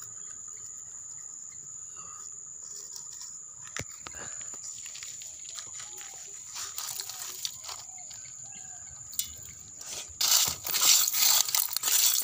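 A steady high cricket drone runs throughout. From about ten seconds in, loud gritty scraping and rustling comes from a hand stirring red grit, charcoal and wood ash in a clay bowl.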